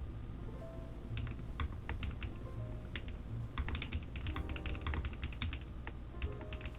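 Runs of quick, sharp plastic clicks from a mechanical keyboard, coming in irregular bursts, densest in the middle, over soft background music.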